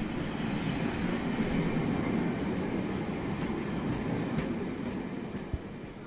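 A steam train and its coaches rumbling along the track as it pulls away, with a few faint high wheel squeals and clicks. The sound fades toward the end.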